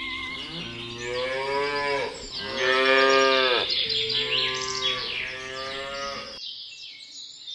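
Cows mooing: three long, drawn-out moos in a row, the middle one loudest, with birds chirping in the background.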